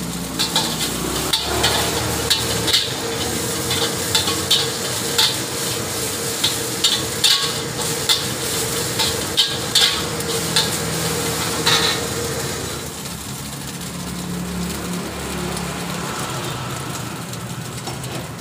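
Metal spatula scraping and clanking against a steel wok while egg and rice are stir-fried over a steady sizzle, about one or two strikes a second. The strikes stop about two thirds of the way through, leaving only the sizzle and a low hum.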